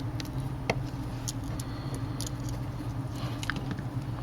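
Light, scattered clicks and ticks from a small screwdriver and tiny screws as screws are driven into a tablet's frame, over a steady low background hum.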